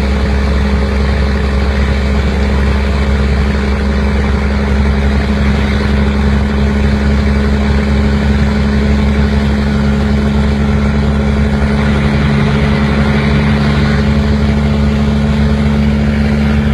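A vehicle engine running steadily at a near-constant speed, its pitch shifting slightly about twelve seconds in.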